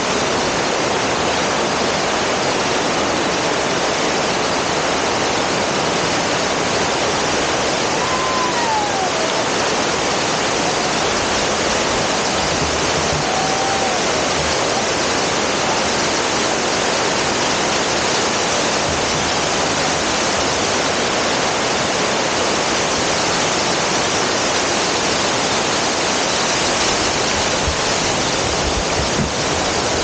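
Water pouring over the curved wall of a check dam and crashing onto the rocks at its foot, heard close up: a loud, steady rush.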